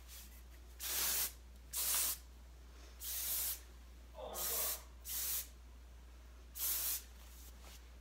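Aerosol texture hairspray (Schwarzkopf Osis Session Texture Hairspray) being sprayed onto hair in six short bursts, each about half a second long.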